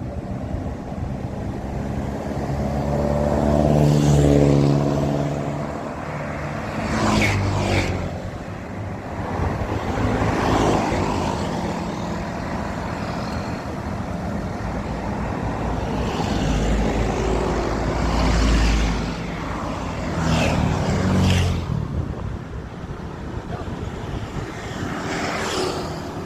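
Road traffic: vehicles passing one after another, their engines swelling and fading as each goes by, with a heavy low rumble of a larger vehicle about 17 seconds in.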